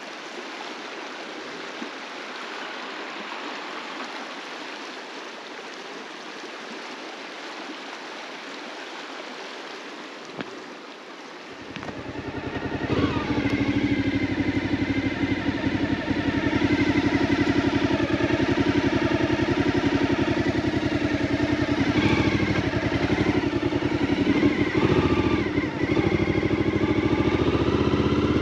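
A steady rushing noise, then about twelve seconds in a Suzuki V-Strom motorcycle's engine comes in, grows louder over a couple of seconds and runs steadily as the bike rides on.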